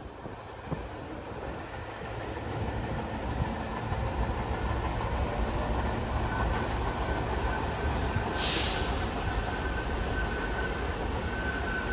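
New York City subway trains rumbling on the tracks, getting louder as trains approach the station. Over the second half there is a faint, steady high squeal from the wheels, and a short burst of hiss comes about eight seconds in.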